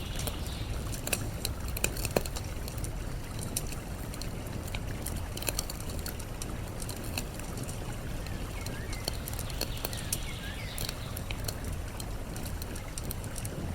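Campfire crackling, with scattered sharp pops, over a steady rush of flowing water. A few short bird chirps come in the middle.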